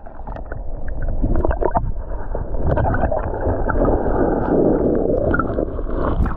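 Muffled rushing and gurgling of river current heard through a camera held underwater, with the high sounds cut off, and a few knocks against the housing in the first two seconds.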